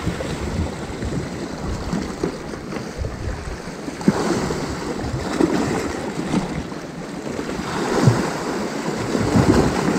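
Sea swell washing and breaking against shoreline rocks, surging louder every few seconds.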